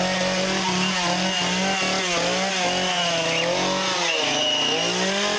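Two-stroke chainsaw running loud, its engine revving up and down again and again.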